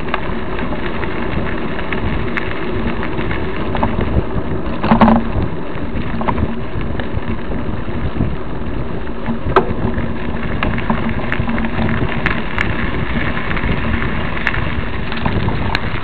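Mountain bike rolling along a dirt trail: a steady rumble of tyres and wind on the microphone, with the bike and camera rattling in scattered clicks over bumps. A louder knock comes about five seconds in.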